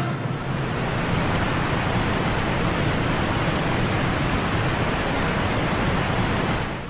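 Steady rushing of water pouring over the Horseshoe Falls at Niagara, fading out near the end.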